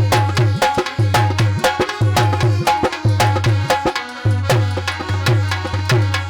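Instrumental interlude of a Hindi devotional aarti song: Indian hand drums play a fast, steady rhythm with deep bass strokes under a sustained melody line.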